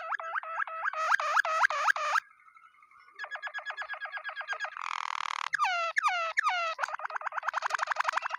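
Waterslager canary singing: a varied song of fast, evenly repeated note trains. The song pauses briefly about two seconds in, then resumes with a noisier bubbling stretch and a few downward-sweeping notes past the middle, before returning to a rapid trill.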